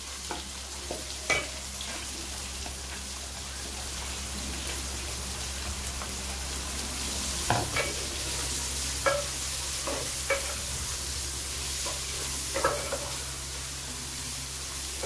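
Chopped onions frying in hot oil in a metal pot with a steady sizzle. A wooden spatula stirs them and knocks against the pot now and then.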